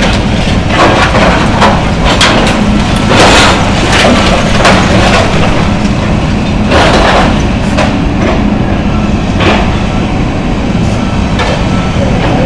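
John Deere excavator engine running steadily under load while it tears down a building, with repeated crashes and cracks of breaking and falling debris, the heaviest about three seconds in and again around seven seconds. The recording is loud and somewhat distorted.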